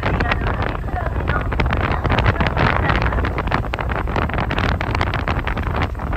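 Wind buffeting the microphone on the deck of a moving sightseeing boat, over the low, steady rumble of the boat's motor.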